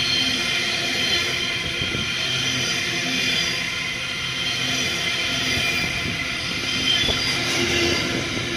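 A train running along the tracks, with several steady high tones over the rumble of the wheels.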